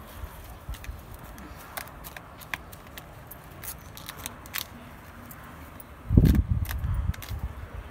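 A plastic nursery bag being opened and pulled off a rose plant's soil root ball: scattered light crackles and clicks, then a burst of low thumps from handling about six seconds in.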